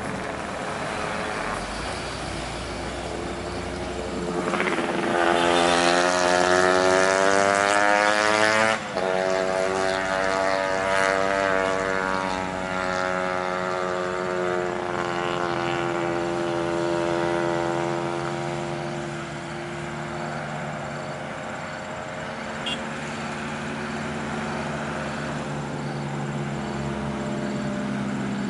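Large diesel bus engine passing under power: its pitch rises steadily for about four seconds, breaks off abruptly near nine seconds in at a gear change, then sinks slowly as the bus moves on, leaving a lower engine drone.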